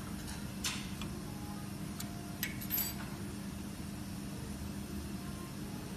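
Steady low hum of the ACF/COF bonding machine, with a few light clicks about a second in and again between two and three seconds in as the quartz bar's levelling adjustment is worked by hand.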